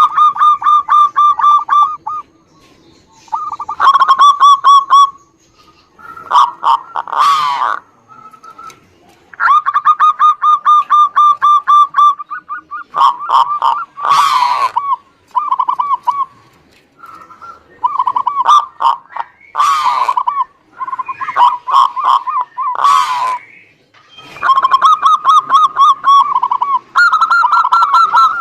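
Zebra doves (perkutut) cooing: phrases of rapid staccato coos, each a second or two long, repeating with short pauses. Several birds answer each other, their phrases sometimes overlapping at slightly different pitches.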